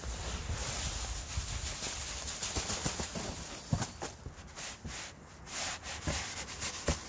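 Sand pouring into a large plastic nursery pot, first from a bag and then tipped from a bucket, as a steady gritty hiss. In the last few seconds it breaks into scattered rustles and taps.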